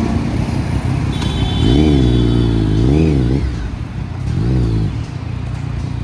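Triumph Daytona sports bike engine, fitted with an aftermarket Arrow slip-on exhaust, idling and blipped three times, the pitch rising and falling with each rev. A thin, steady high whistle runs through the first two revs.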